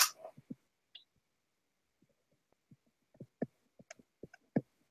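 A sharp click at the start, then scattered computer keyboard and mouse clicks that come more often from about three seconds in.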